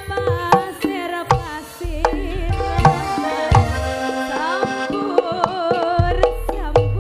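A pesinden (Javanese female singer) sings through a microphone and PA over live Javanese band accompaniment, with frequent hand-drum strokes, likely kendang, cutting through.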